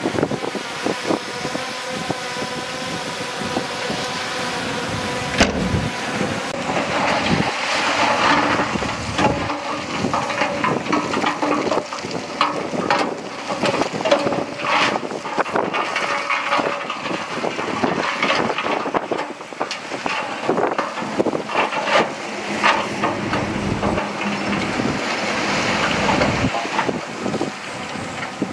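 Komatsu D31P crawler bulldozer working: its diesel engine runs steadily under load while the steel tracks and blade give frequent clanks and knocks.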